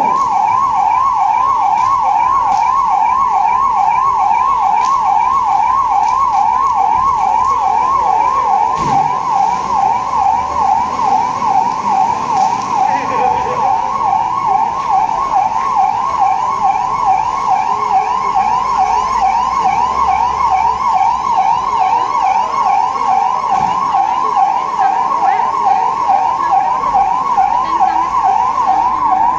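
Electronic siren warbling rapidly, its pitch sweeping up and down about two to three times a second, sounding the alert for an emergency mock drill.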